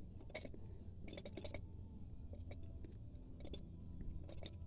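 Melling high-volume small-block Chevy oil pump being turned by hand on its driveshaft: faint, irregular clicking in small clusters as the pump gears start to draw in assembly lube grease, the sign that the pump is priming and taking the grease.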